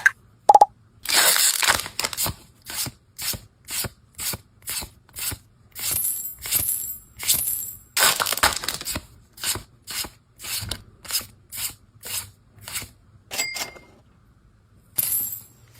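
Pokémon trading cards being slid and flicked through one at a time: a short papery swish about twice a second. A brief tone sounds about half a second in.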